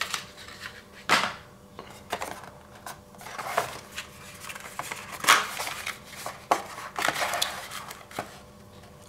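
Cardboard packaging being handled: small cardboard boxes slid and lifted out of a tablet's box and a card sleeve opened, giving scattered taps, scrapes and rustles, the sharpest a little past five seconds in.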